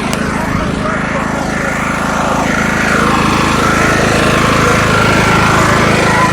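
Ride-on lawnmower engine running steadily as it is driven, with a fast, even firing pulse; it gets a little louder about halfway through.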